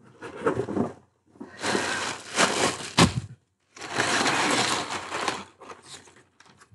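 Packing material being pulled out of a cardboard box: plastic air-pillow packing crackling, then crumpled brown kraft paper rustling. It comes in three long rustles, with a sharp crack about three seconds in and a few shorter rustles near the end.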